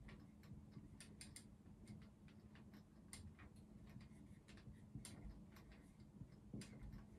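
Faint, irregular ticks and taps of someone writing out an equation by hand, a few a second, over a low steady hum.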